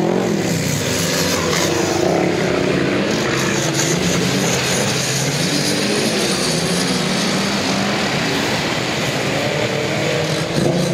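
Lifted off-road pickup's engine running hard under load as it drives through mud and dirt, its pitch rising and falling with the throttle.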